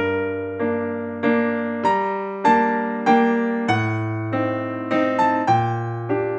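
Gentle piano music: single notes played at an even pace, roughly one and a half to two a second, each fading after it is struck, over held bass notes.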